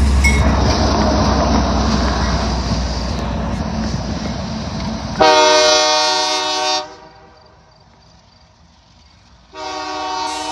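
Freight train rumbling past close by, then a locomotive's multi-note air horn sounding two blasts: one of about a second and a half, and another starting about a second before the end.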